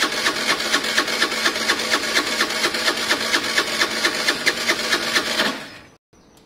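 Electric starter motor cranking the Piaggio Fly 125's single-cylinder four-stroke engine, boosted from another battery through jump leads. It makes an even, rapid chugging whir for about five and a half seconds without the engine catching, then stops abruptly as the button is released. The engine is thought to need a carb clean after standing unused.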